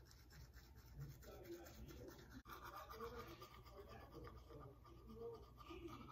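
Faint scrubbing of a manual toothbrush against the teeth, close to the microphone.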